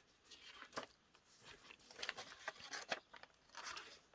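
Paper pages and tags of a handmade junk journal being handled and turned: a series of short, soft rustles and light taps.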